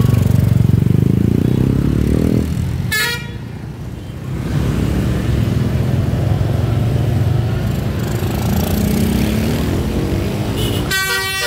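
Vehicle engine running loud in stop-and-go traffic, rising in pitch as it revs up at the start and again later, with a brief horn toot about three seconds in. Near the end a tour bus's multi-tone 'telolet' musical horn starts playing a stepped melody.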